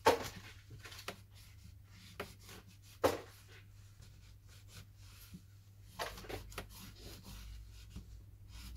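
Hands working on a smartphone during a screen repair: two sharp knocks of the phone or a tool set down on the work surface, one right at the start and one about three seconds in, with light rubbing and small clicks between them.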